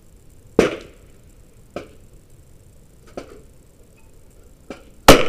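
Sharp reports of .22 LR rifle fire at irregular intervals. The loudest, near the end, is the shot from the Savage B22 Precision firing RWS Target Rifle ammunition. A strong crack comes about half a second in and three lighter ones follow in between.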